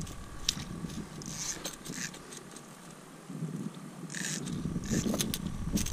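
Scattered short scrapes and clicks of a landing net and fishing gear being handled on a plastic kayak. A low rumble comes in about four and a half seconds in.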